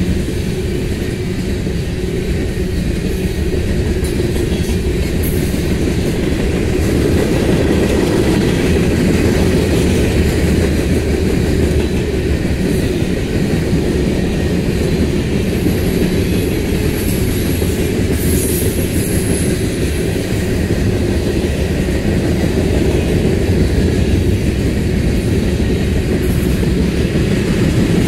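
Freight cars of a long mixed manifest train (boxcars, tank cars and loaded flatcars) rolling past. Steel wheels on the rail make a steady low rumble with clickety-clack over the rail joints.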